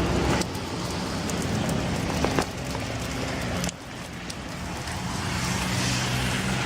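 Street traffic noise with a motor vehicle engine running steadily nearby, its level dropping sharply twice.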